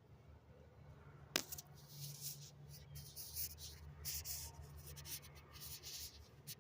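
Handling noise from working at the distributor: one sharp click about a second and a half in, then irregular rubbing and scraping, over a faint steady low hum.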